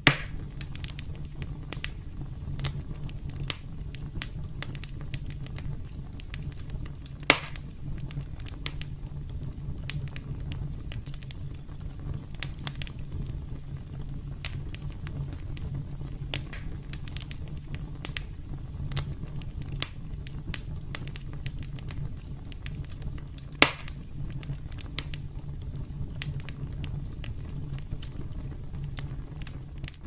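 Wood campfire crackling: a steady low rumble of burning with many small snapping clicks, and three louder sharp pops, right at the start, about seven seconds in, and about three-quarters of the way through.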